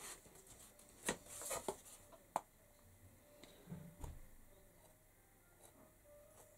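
Faint handling noise: a few light clicks and taps about one to two and a half seconds in, then a soft low thump about four seconds in.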